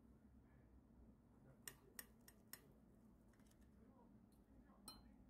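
Metal knife and fork clicking against a ceramic plate while cutting a cooked ground-meat patty, all faint: four quick clicks a little past a second and a half in, and one more near the end.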